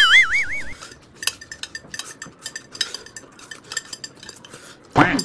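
Eating utensils clicking and clinking against bowls and dishes in many small irregular taps during a meal. At the very start there is a short warbling whistle-like tone.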